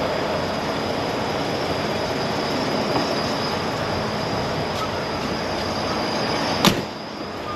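Diesel running through a fuel pump nozzle into a truck's tank with a steady rush, then one sharp click near the end as the nozzle shuts off, after which the noise drops.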